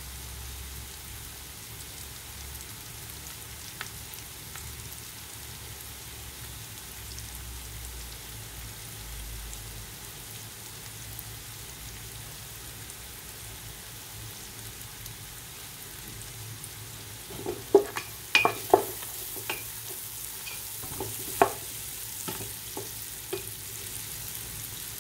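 Onion and carrot base frying in oil in a pot, a steady sizzle as it browns. From about two-thirds of the way in, a wooden spoon knocks and scrapes against the pot in a scattering of sharp clicks as it is stirred.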